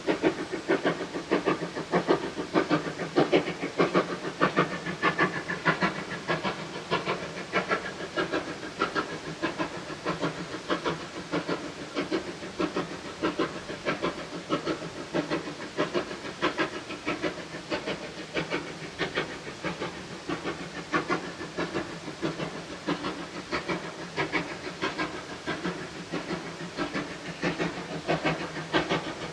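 Steam locomotive working a train, its exhaust beating in a steady, rapid rhythm over a continuous hiss of steam.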